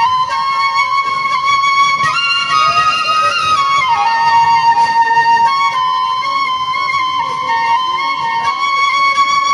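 Background music: a flute melody of long held notes that step up and down, over a soft low accompaniment.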